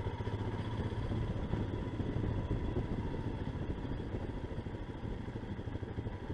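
Motorcycle engine running steadily at low road speed, heard from the riding bike with a low, even engine note and rushing noise.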